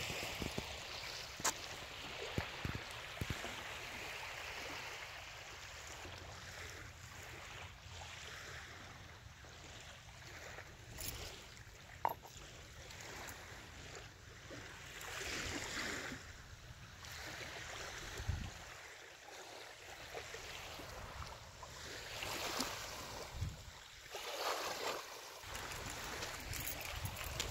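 Steady outdoor ambient hiss that swells and fades a few times, with a couple of brief sharp knocks, about a second in and again near the middle.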